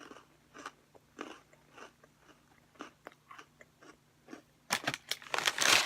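Close-up chewing of a Cherry Cola Oreo cookie: soft, irregular crunches two or three times a second. Near the end a louder crinkling rustle starts.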